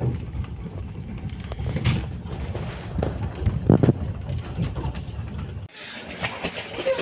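Passenger sleeper train running, a steady low rumble of wheels on the rails heard from inside the carriage, with a few knocks as luggage is handled. The rumble cuts off abruptly near the end and gives way to a brighter, busier background.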